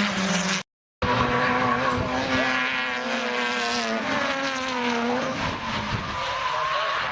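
Drift car engine held high in the revs while its tyres skid and squeal, the engine note wavering and then dropping away about five seconds in. The sound cuts out completely for a moment just before one second in.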